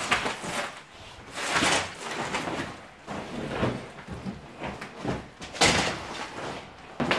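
Old carpet and underlay being pulled up and handled on the floor: irregular scraping and rustling swishes, with a sharp knock near the end.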